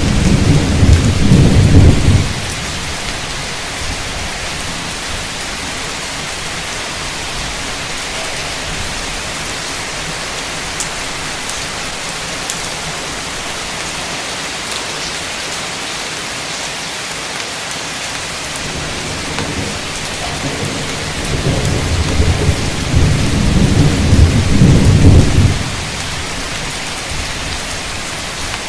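Torrential rain hissing steadily in a thunderstorm. A thunder rumble dies away about two seconds in, and another rolling rumble builds from about 20 seconds in, loudest just before it stops about 25 seconds in.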